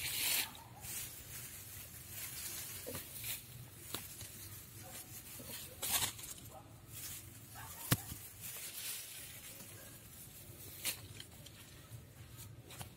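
Hand scraping and brushing through loose dry soil and grass stems: irregular rustling scrapes, with a few sharper ones around six and eight seconds in.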